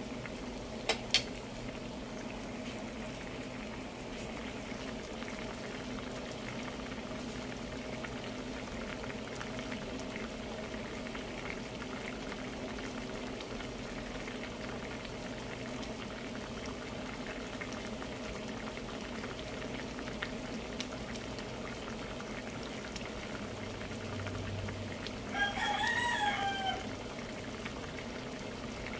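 Coconut milk with taro leaves simmering in a pan, bubbling steadily. About 25 seconds in, a short high, wavering call lasts about a second and a half and is the loudest sound.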